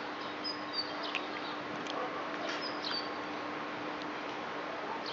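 Small birds chirping: a few short high chirps over a steady outdoor background hiss, with a faint steady hum and a few small clicks.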